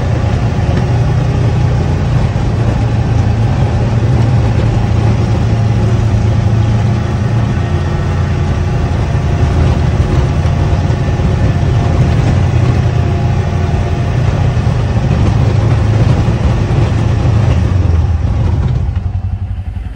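Kubota Sidekick utility vehicle's engine running steadily while plowing snow, heard from the driver's seat; it drops off near the end.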